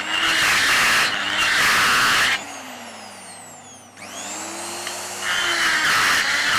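Die grinder grinding into a cast iron gear repair. About two seconds in it is let off and spins down with a falling whine. At about four seconds it spins back up with a rising whine and bites into the metal again.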